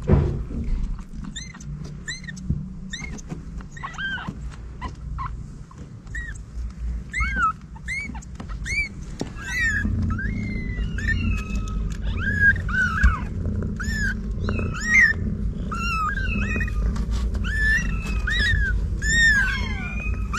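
Several young kittens mewing: short, high-pitched mews, scattered at first and then coming thick and overlapping through the second half, over a steady low rumble. A sharp thump right at the start.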